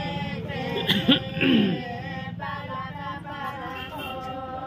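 A group of voices singing or chanting together in long held notes, unaccompanied, with one louder voice sliding downward about a second and a half in.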